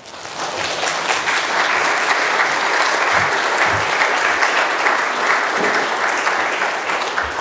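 Audience applauding, swelling up within the first second, holding steady, then fading near the end.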